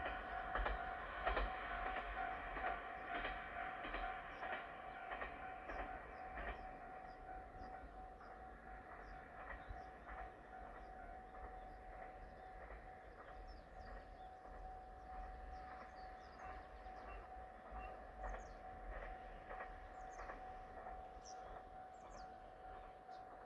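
A KiHa diesel railcar running past and fading away over the first several seconds, while a level-crossing warning bell keeps ringing with a steady, even beat. A few short high chirps come in near the end.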